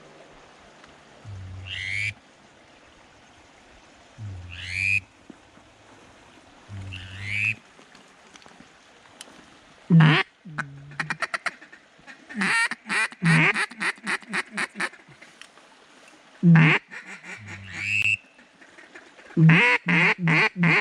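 Mallard quacking, most likely a hunter's duck call working incoming birds: loud quacks in quick runs of several, about ten seconds in, again for a couple of seconds mid-way, and near the end. Three short rising whistle-like calls come earlier.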